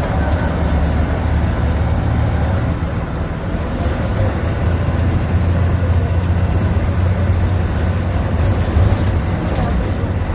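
MWM Maxxforce 225 hp inline six-cylinder turbodiesel of an Agrale MA 17.0 bus running, a steady low drone.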